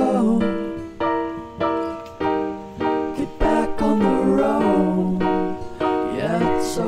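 Background music: a song with a singing voice over keyboard chords.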